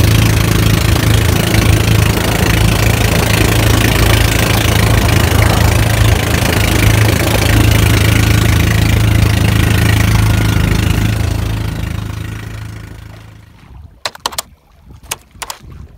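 Small boat's engine running steadily with a low hum, under wind and water noise, fading out about three-quarters of the way through. A quick run of sharp clicks follows near the end.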